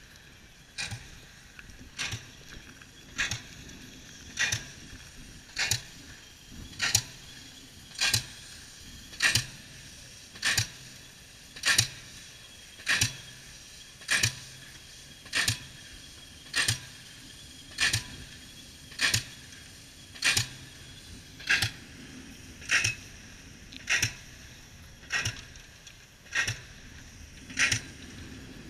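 Pile-driving rig's hammer striking a pile in a steady rhythm, about one blow every 1.2 seconds. Each blow is a sharp metallic clang with a short ring.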